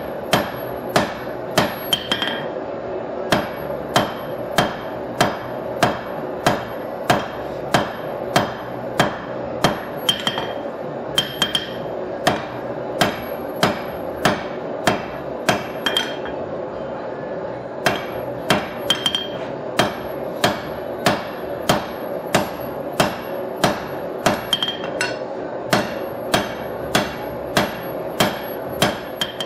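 Hand hammer striking red-hot steel on an anvil at a steady pace of about two blows a second, drawing out a knife blank, with a few brief pauses. A steady rushing noise runs underneath.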